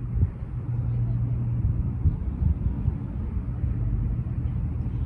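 A steady low rumble with a low hum and scattered dull thumps.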